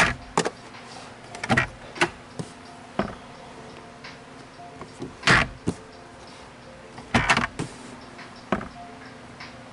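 Plastic glove box of a 2020 Toyota Corolla clicking and knocking as it is worked open and shut, a string of short sharp clicks with the loudest knock a little over five seconds in.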